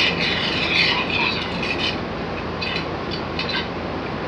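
Steady, loud hiss of heavy rain, with brief crackling sounds over it in the first two seconds.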